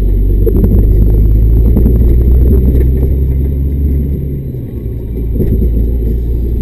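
Diesel engine of a loaded timber lorry pulling heavily, heard from inside the cab, with short rattles and knocks from the first few seconds. The engine note eases off about four and a half seconds in.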